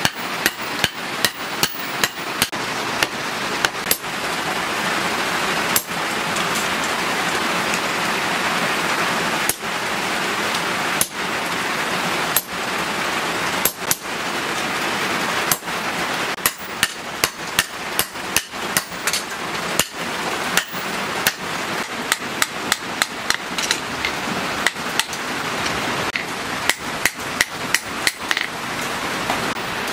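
Hand hammer striking a red-hot leaf-spring steel axe blade on a steel post anvil, in quick runs of sharp blows. For a stretch in the middle the blows thin out to one every second or two, under a steady hiss.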